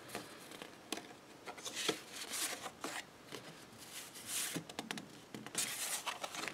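Sheets of card stock handled and slid over one another: a handful of short papery swishes and rustles with a few light taps.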